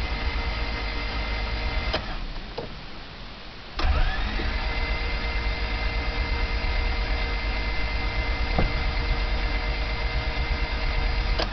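Honda Civic's four-cylinder engine cranked on the starter without catching, in two long stretches with a short pause about two seconds in; a whine rises as the second stretch begins. There is absolutely no compression in the motor, which the owner suspects is a valve sticking open after bad gas.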